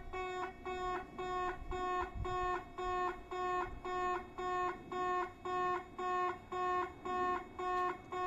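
Kintetsu in-station level crossing's electronic warning bell ringing a listless-sounding ding, repeated evenly about twice a second.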